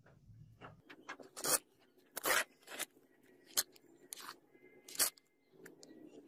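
Hands pressing and rubbing sand around a pattern in a sand-casting mould box: a string of short, gritty crunching scrapes, about six of them, the loudest about two seconds in.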